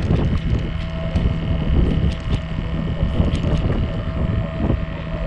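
Boat engine running steadily at low revs, a constant hum, with wind rumbling on the microphone.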